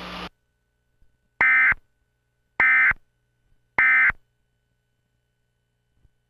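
Emergency Alert System end-of-message tones: three short, identical digital data bursts about a second apart, signalling the end of the alert. A background hiss cuts off just before them.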